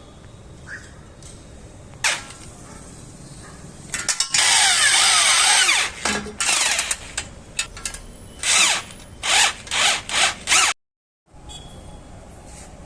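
Handheld power tool, likely a drill, run in a series of bursts: one long run of about two seconds with the motor speed sliding up and down, then several short trigger pulls.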